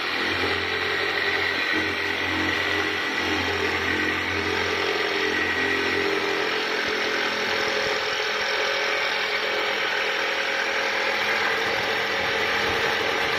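Corded electric jigsaw running steadily, its reciprocating blade cutting through a plywood sheet.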